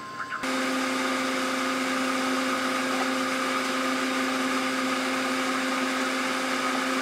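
Steady machine whirr with a hiss and a low hum under it, switching on abruptly about half a second in and running evenly after that.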